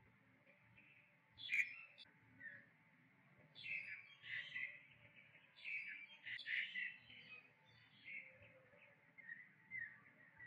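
Short high chirping calls in clusters every second or two, over a faint steady background.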